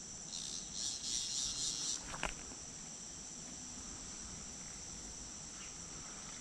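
Steady, high-pitched chorus of insects. A short hissy rush from about a third of a second to two seconds in, and a sharp click just after two seconds.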